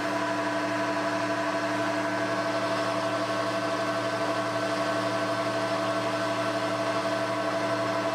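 Metal lathe running at a steady speed while a tool faces the end of a 4140 steel round bar. Its drive gives a steady whine of several tones over a faint hiss of cutting.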